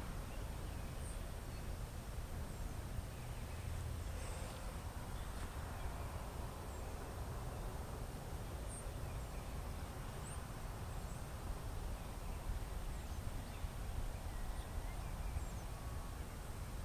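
Outdoor ambience: a steady low rumble of wind on the microphone, with faint, scattered bird chirps every few seconds.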